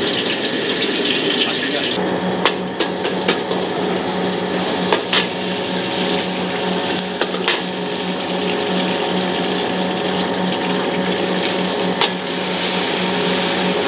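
Food frying in a wok over a charcoal stove, with a steady sizzle and a metal ladle knocking against the wok now and then. A steady low hum sets in about two seconds in.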